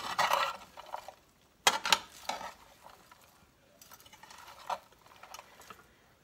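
A slotted metal spatula stirring diced hash browns, cabbage, onion and ground beef in a skillet, scraping and clinking against the pan in three or four short bursts, the sharpest just under two seconds in.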